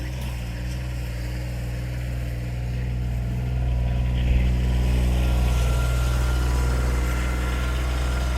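Farm tractor engine running steadily at a low, even pitch, getting louder over the first few seconds and then holding steady.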